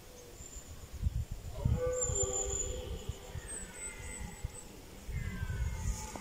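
Deer stags roaring in the autumn rut: several drawn-out pitched calls starting about a second and a half in, the last one falling in pitch near the end, over a low rumble on the microphone.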